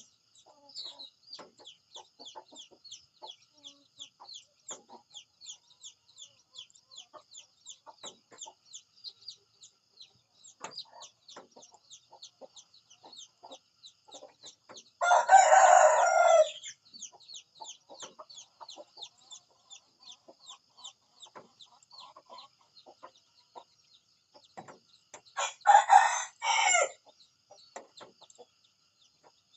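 A rooster crowing twice, about fifteen seconds apart, each crow lasting a second or two. Between the crows, faint rapid high-pitched chirping continues in the background.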